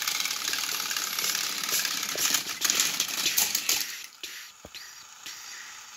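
Motorised plastic toy train engines running on plastic track: a steady motor whirr with wheels rattling and clicking, a run of sharper clatters, then the motor noise cuts off about four seconds in, as an engine tips up off the track.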